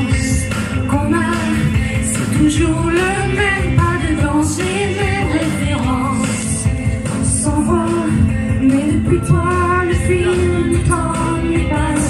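A man singing into a handheld microphone over a pop song accompaniment, amplified through the hall's sound system.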